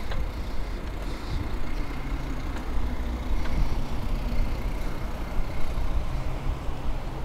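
Bicycle rolling along a brick-paved cycle path: a steady low rumble of tyres and wind, with motor traffic passing on the road alongside.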